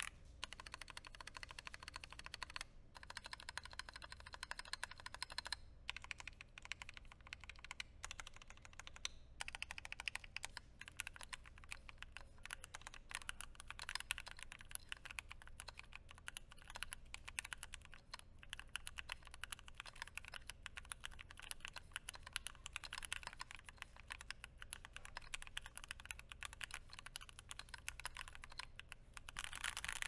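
Continuous typing on a stock Keychron Q10, a fully aluminum, gasket-mounted Alice-layout mechanical keyboard with OSA-profile keycaps and tactile switches, taken to be Gateron Browns. The keystrokes come as a dense, fast clatter, with a few brief pauses in the first ten seconds.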